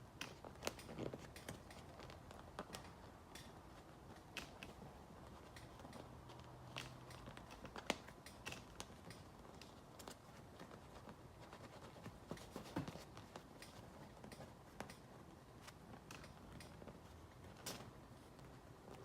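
Faint, scattered clicks, crackles and rustles of hands working a patch into the tear of a vinyl motorcycle seat, over a low steady room hum.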